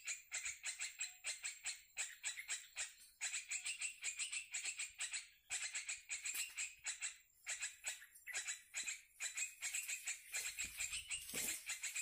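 Small birds chattering: rapid runs of short, high chirps, about five a second, broken by brief pauses.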